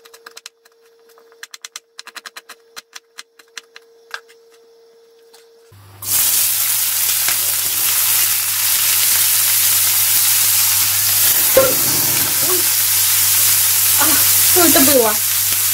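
A knife chopping onion on a cutting board in quick, light taps. About six seconds in, chopped onion goes into hot oil in a frying pan and sizzles loudly and steadily, with a few knocks as it is stirred near the end.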